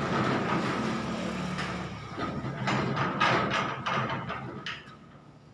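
A motor vehicle engine running steadily, with a low hum, fading away over the last second or so.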